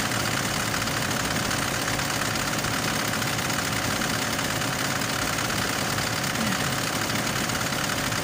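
Isuzu 4JA1 four-cylinder diesel engine idling steadily on a long warm-up run with a newly fitted cylinder head.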